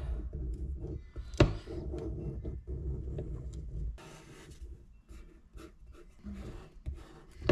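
Vinyl decal and painter's tape being rubbed down by hand onto a painted motorcycle side panel to press out bubbles: scratchy rubbing and light ticks, with one sharp click about one and a half seconds in.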